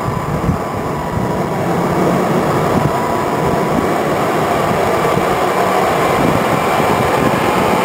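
Omega Lift Mega Series 10MS rough-terrain forklift's engine running steadily as it drives up, growing a little louder over the first two seconds.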